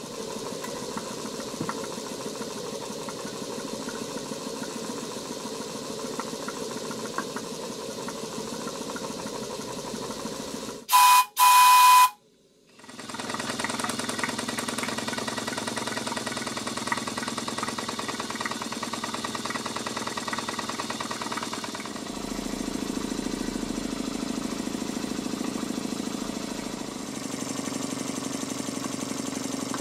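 Stuart Sirius model steam engine running steadily under steam. About eleven seconds in, two short, very loud whistle-like blasts cut in, followed by a moment of quiet before the engine is heard running again.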